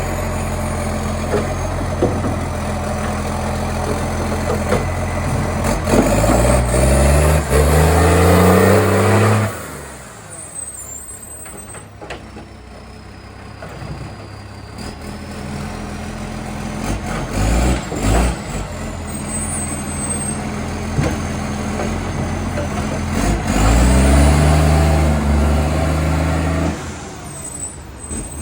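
Garbage truck's diesel engine, made very loud by a leaking exhaust pipe, running steadily and revving up twice for a few seconds each, dropping back suddenly after each rev.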